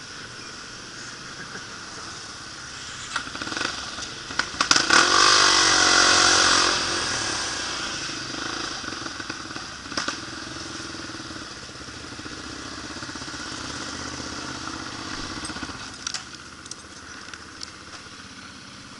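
Single-cylinder four-stroke engine of a Honda XR250 dirt bike running as it is ridden along a street. About five seconds in, a loud rush of noise with a shifting engine pitch lasts about two seconds. The engine then runs steadily and quietens near the end as the bike slows to a stop.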